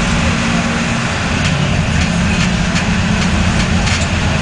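Mercedes-Benz OF-1721 bus's OM-366LA turbocharged straight-six diesel engine running steadily. Its pitch dips a little over a second in and then holds, with a few faint clicks above it.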